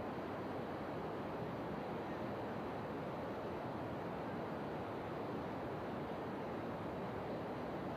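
Steady, even rushing noise with no pitch or rhythm.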